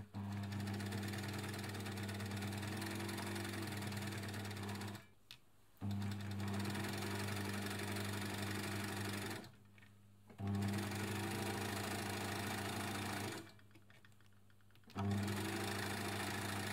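Elna Lotus TSP sewing machine stitching through fabric in four runs of a few seconds each, with a steady motor hum and short stops between runs. It is test sewing after its rusty tension discs were cleaned.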